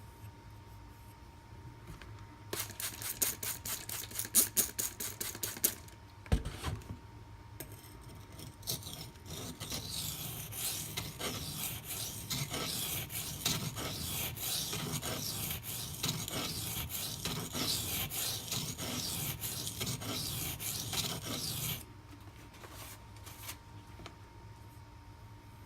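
Steel knife blade scraping across a coarse silicon carbide sharpening stone, with the edge riding right up against the choil: first a run of quick short strokes, then a single low thump about six seconds in, then steady continuous scraping for about fourteen seconds that stops suddenly near the end.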